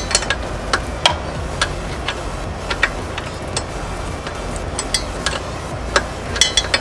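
Metal spanner clicking against a clutch master cylinder mounting bolt as it is turned in short, small moves, giving irregular sharp clicks one or two a second over a steady low hum.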